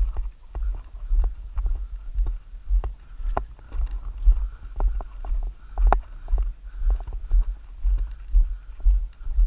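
Footsteps walking on a gravel dirt road in a steady rhythm of about two steps a second. Each step lands as a low thud with a short crunch of gravel.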